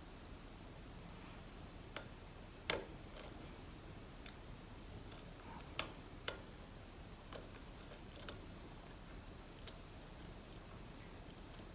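Light, irregularly spaced metallic clicks of a lock pick working the pin stack inside an Assa Abloy Arrow lock cylinder under tension, over faint hiss.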